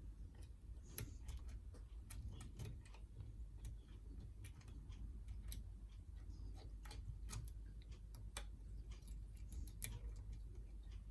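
Faint, irregular light clicks of a hook pick lifting the pins of a Yale Y121B pin-tumbler padlock under tension from a tension wrench, while pin 3 keeps oversetting. A low steady hum lies underneath.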